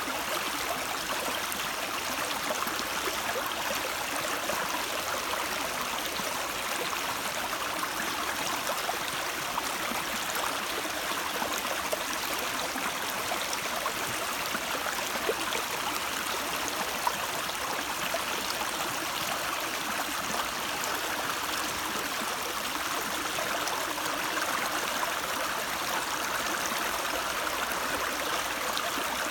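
A stream of water running and gurgling steadily over rocks.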